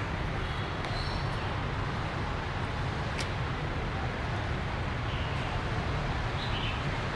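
Steady low outdoor rumble with no speech, with one sharp click about three seconds in and a few faint high chirps.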